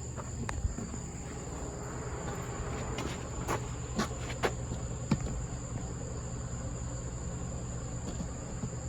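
Steady high-pitched insect chirring, with a handful of short light clicks and knocks in the first half.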